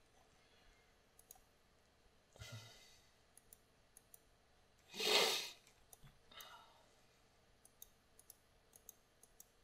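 Faint, irregular light clicks scattered throughout, with a short breath out about five seconds in as the loudest sound and a softer one about two and a half seconds in.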